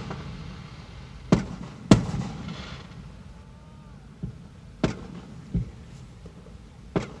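Aerial firework shells bursting overhead in a string of sharp booms, about six in all. The loudest comes about two seconds in and is followed by a brief crackle.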